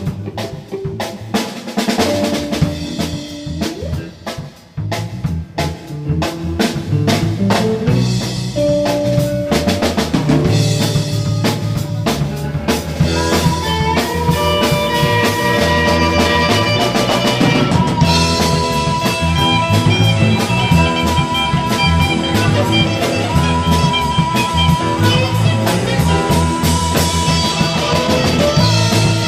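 Blues band music: a drum kit and bass keep a steady beat, and sustained melody notes come in about halfway through.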